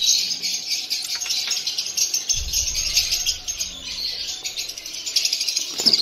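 Many caged lovebirds chirping and chattering at once, a dense, continuous high-pitched twitter. A brief low rumble comes in about two and a half seconds in.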